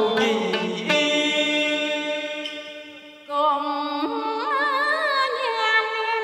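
Vietnamese cải lương-style stage music: long held notes that waver in pitch. One note fades away about three seconds in, and a new one starts straight after.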